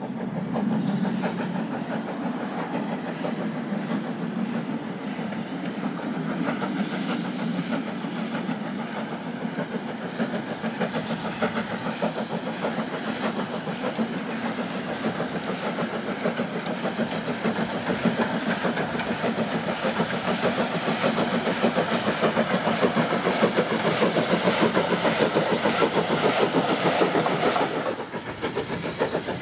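Great Eastern Railway Class Y14 0-6-0 steam locomotive working a train of vintage wooden carriages at speed, with a fast, even beat of exhaust and the rattle of wheels on the rails. The sound grows a little louder as it approaches, then drops briefly near the end.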